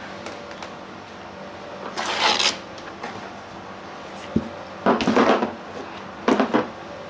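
Plastic car bumper being handled: three short scraping or rubbing bursts and one sharp click.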